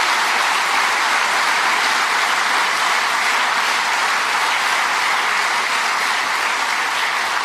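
Audience applause, steady and loud.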